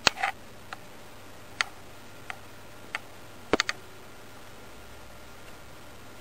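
A few scattered light clicks and taps, with a sharper double knock about three and a half seconds in.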